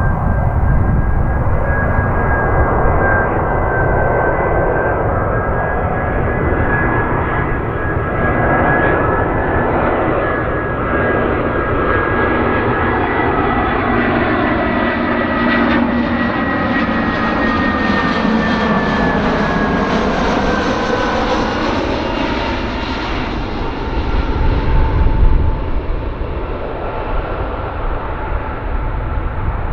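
Airliner on final approach passing close overhead, its engines running with a steady rumble and a thin fan whine. About halfway through, the whine sinks in pitch as the aircraft goes by.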